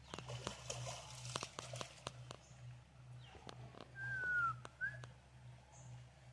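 A clear whistle gliding down in pitch for about half a second, then a short rising note, about four seconds in, over scattered light clicks and a low steady hum.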